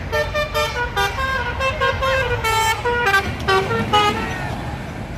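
A bus's 'telolet basuri' musical horn playing a quick tune of short stepped notes, stopping about four seconds in. A steady low rumble of passing highway traffic runs underneath.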